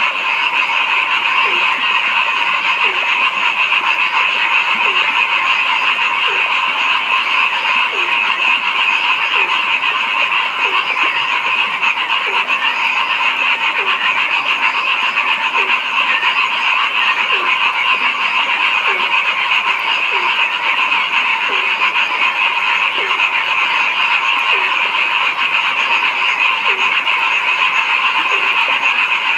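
Frogs calling in a dense, steady chorus, with one lower croak repeated about once a second over the continuous higher calling.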